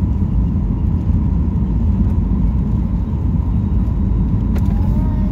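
Steady low rumble inside the cabin of a Boeing 737-800 on final approach with flaps extended: its engines and the rushing air, heard from a window seat over the wing.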